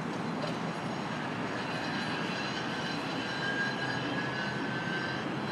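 Steady engine drone with a faint, high, even whine.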